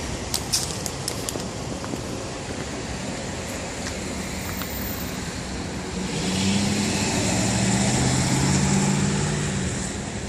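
Street traffic, with a motor vehicle passing close by: its engine hum grows louder about six seconds in and fades near the end. A few sharp clicks sound in the first second or so.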